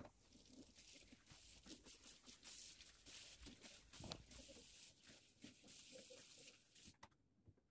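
Faint sounds of a stainless-steel kitchen sink being cleaned: scrubbing and the tap running to rinse it, with a light knock about four seconds in. The running water stops near the end.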